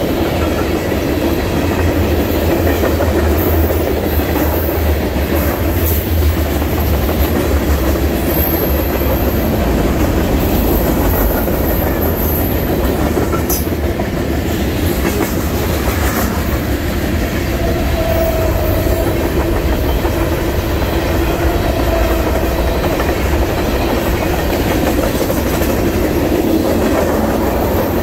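Mixed freight train cars rolling past close by: a steady low rumble with wheels clattering over the rails, and a thin high wheel squeal now and then near the middle.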